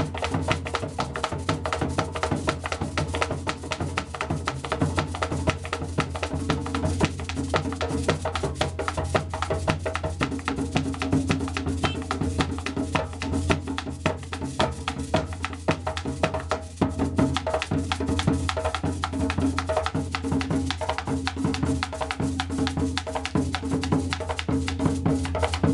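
Background music with a fast, steady percussion beat over a held bass line.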